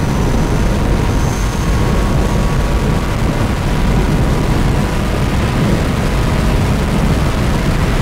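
Loud, steady wind and tyre noise inside the cabin of a Tesla Model 3 Performance accelerating at full throttle, speed climbing past 120 mph.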